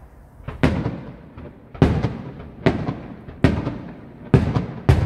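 Aerial firework shells bursting close overhead: six loud bangs in quick succession, roughly one a second, each trailing off in a fading rumble.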